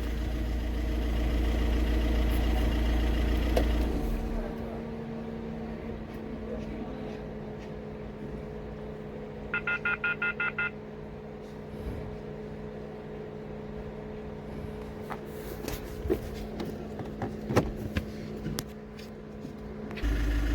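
Volkswagen Vento diesel engine idling with a steady hum, louder for the first four seconds and quieter after. About ten seconds in there is a quick run of short electronic beeps, and a few scattered clicks come later.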